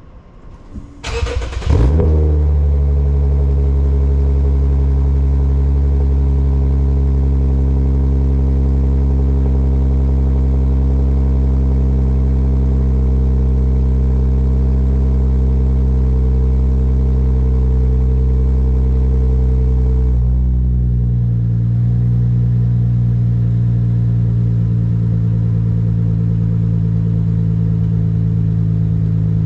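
Lexus IS350's 3.5-litre V6, heard at the tip of an HKS Hi Power catback exhaust with an Invidia midpipe, starts about a second in with a short rev flare. It then idles fast and steady, and around twenty seconds in the idle drops and settles into a lower, deeper steady idle.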